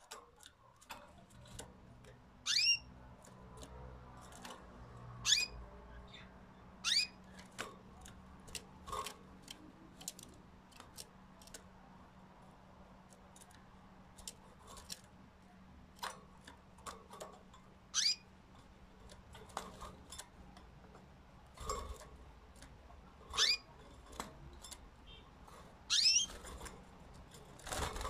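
Domestic canaries giving single short, sharp chirps every few seconds, with light clicks and taps between them.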